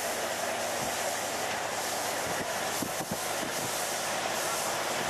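EMD MP15DC diesel switcher locomotive running with its freight train: a steady noise of engine and steel wheels on the rails, with a few short low thumps.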